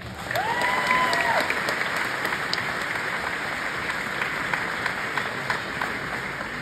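Audience applauding, starting at once and slowly dying away near the end. One high, drawn-out whoop rises over the clapping within the first second and a half.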